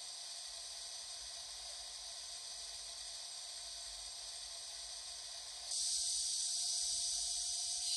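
Standstill operating sounds of an N gauge TGV Sud-Est model, played by its ESU LokSound 5 decoder through the model's small speaker: a steady hiss with faint steady tones. Near the end it suddenly gets louder and brighter.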